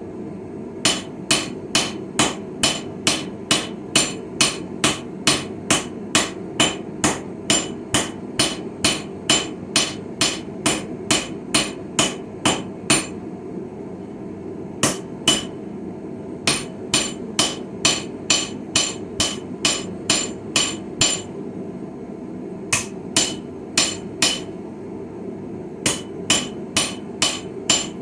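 Hand hammer striking steel on a small Viking-style anvil, about two and a half blows a second in runs broken by short pauses, each blow ringing briefly. A steady low hum runs underneath.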